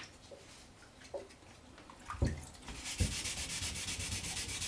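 Wet-and-dry sandpaper rubbed by hand over a wooden rifle stock to take off leftover varnish. A couple of knocks come just past two seconds in, then quick, even back-and-forth sanding strokes start near the three-second mark.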